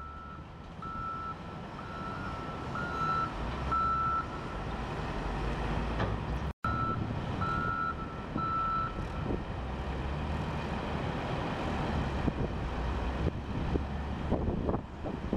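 Volvo wheel loader's diesel engine running while its reversing alarm beeps a single high tone, roughly one and a half beeps a second, as the machine backs up. The beeping stops about four seconds in, comes back for a couple of seconds after a momentary dropout, then only the engine is heard, working harder toward the end as the loader lifts and tips its bucket into the dump truck.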